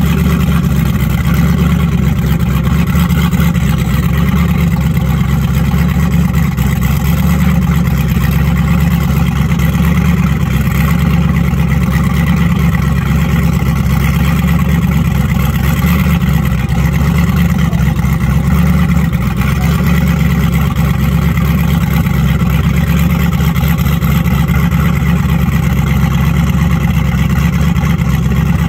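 Supercharged engine of a Checkmate power boat idling steadily with a low, even note.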